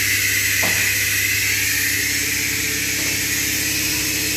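Steady workshop background noise: a constant mechanical hum under an even hiss, with a short falling squeak about two-thirds of a second in.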